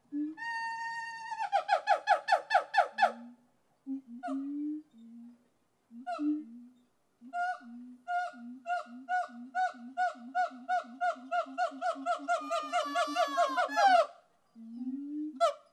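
Layered animal calls: a low hooting note repeated about twice a second under a higher call. The higher call holds one note briefly, breaks into a fast run of pulsed notes, then starts again and speeds up into a rapid trill that ends in a swooping note near the end.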